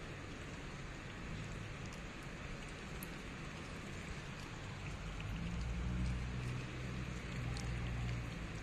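Steady rain-like hiss, with a low rumble of the phone being handled from about five seconds in.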